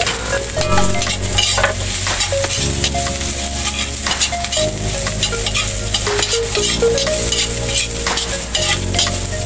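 Onion, garlic and ginger sautéing in hot oil in an aluminium wok, sizzling, while a metal spatula scrapes and clinks against the pan in repeated stirring strokes.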